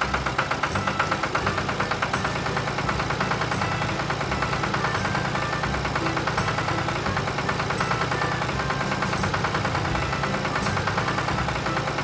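Engine sound effect for an animated combine harvester, running with a fast, steady chugging pulse that stays even throughout.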